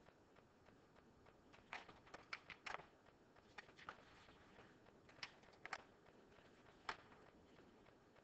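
Faint rustling and light clicks of paper sheets being handled and shuffled on a desk, in short irregular bursts over quiet room tone.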